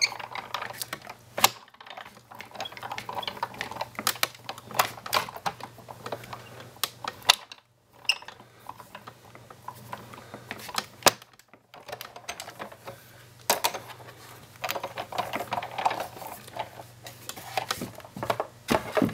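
Big Shot manual die-cutting machine being hand-cranked, with a plate sandwich and a metal Framelits die pressing through the rollers to cut paper: irregular clicks and crackles, with two short pauses around the middle. A faint steady low hum runs underneath.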